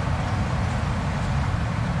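Blizzard wind blowing steadily, a dense hiss over a deep, buffeting rumble, with no whistle or howl.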